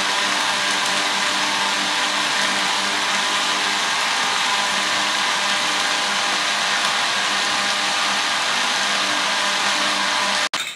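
Countertop blender running steadily, its motor blending a milky iced drink with ice cubes; the sound cuts off abruptly near the end.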